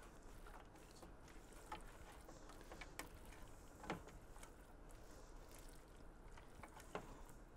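Faint stirring of a thick corn soup in a stainless steel stockpot with a spatula: soft wet stirring with a few light clicks of the spatula against the pot.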